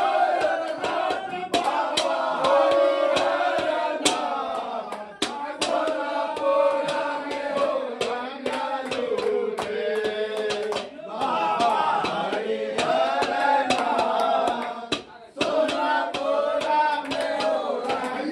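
A group of men singing and chanting a Holi song together, with sharp hand strikes on a steel plate keeping the beat. The singing breaks off briefly a few times.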